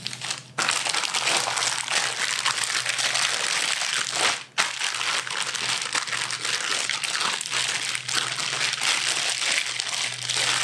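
A plastic zipper bag crinkling and rustling as hands press and knead a flank steak inside it to work the marinade in. There is a brief break a little over four seconds in.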